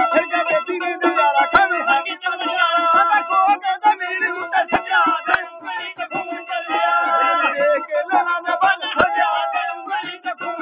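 A ragi (folk singer) singing a song with instrumental accompaniment, the voice sliding between notes.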